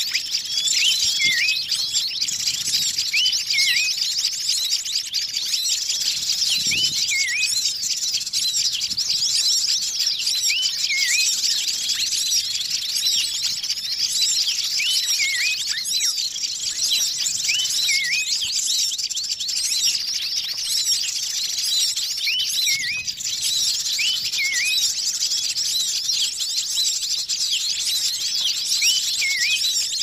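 Bird-lure recording of many small birds calling at once: a dense, busy chorus of chirps and twitters, with a short hooked whistle recurring every second or two below the chatter.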